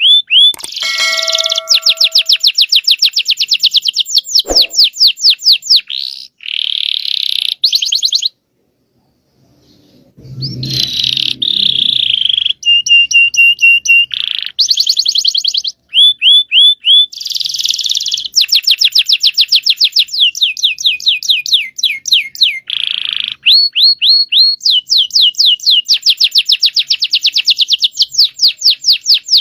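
Domestic canary singing a long rolling song: fast runs of repeated high trilled notes, with a held whistled note midway and a short pause about eight seconds in.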